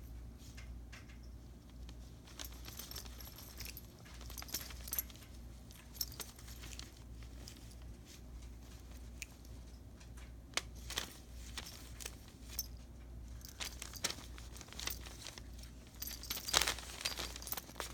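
Tissue paper rustling and crinkling in short irregular bursts as cats bat and pounce on it, with a louder flurry of crinkling near the end.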